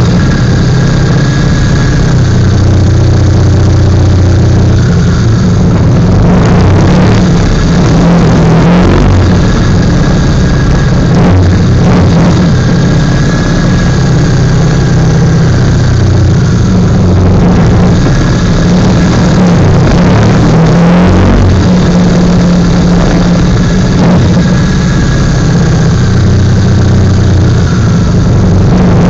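Motorcycle engine running loud and close at low speed, its revs rising and falling a few times.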